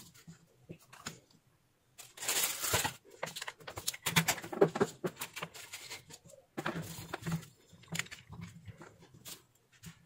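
Irregular scraping, rustling and clicking as tools and the bare switch-mode power-supply circuit board are handled on a wooden workbench, with the board being fitted back into its metal case.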